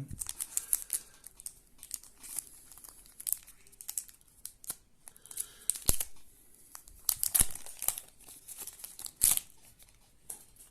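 A trading card pack wrapper being torn open and crinkled by hand: irregular crackling with a few sharper rips about six, seven and a half and nine seconds in.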